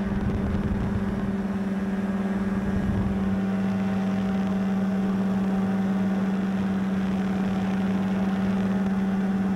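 Paramotor engine and propeller running at a steady, unchanging pitch.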